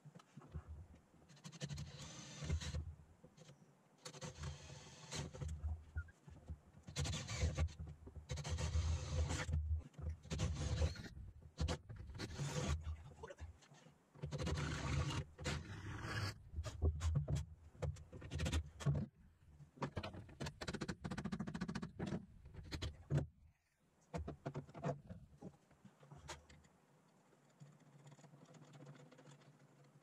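Hand work on a car's gear shifter mount in the transmission tunnel: irregular scraping, rustling and knocking of parts and tools in bursts a second or two long, with a run of sharp clicks midway. It goes quieter near the end.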